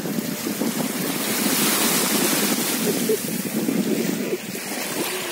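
Small sea waves lapping and washing in the shallows at the shore, with wind buffeting the microphone. The wash swells louder around two seconds in.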